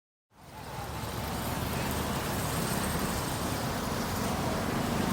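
Steady road traffic noise that fades in over the first second and holds level, with a low rumble of passing vehicles.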